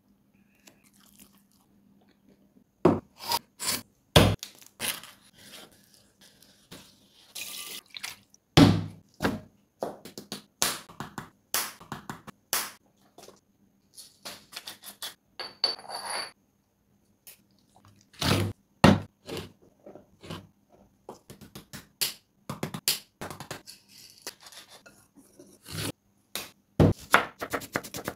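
Close-up kitchen food-prep sounds: a series of sharp taps and knocks, a wooden pepper mill grinding for about a second and a half roughly halfway through, then a knife chopping red onion on a wooden board in quick strokes near the end.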